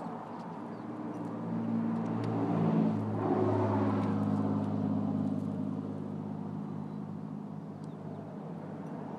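Steady low engine drone of a passing motor vehicle, growing louder about three seconds in and then slowly fading.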